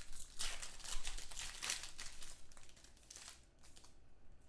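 Crinkling and rustling of a trading-card pack wrapper being handled, busiest in the first couple of seconds and then dying down.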